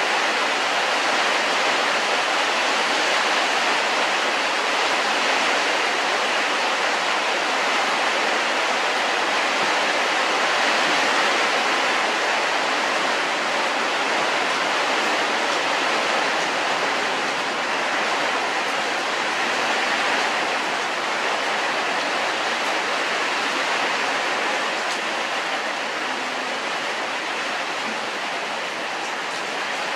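A steady, unbroken rushing hiss like running water, even throughout and a little softer in the last few seconds.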